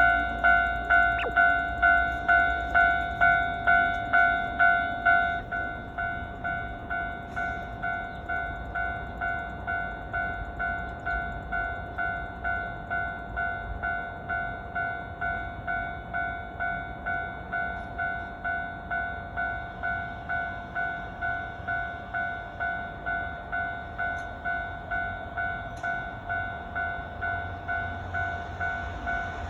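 Japanese level-crossing warning bell ringing at about two strokes a second, dropping to a quieter level about five seconds in. Near the end the rumble of an approaching train builds under it.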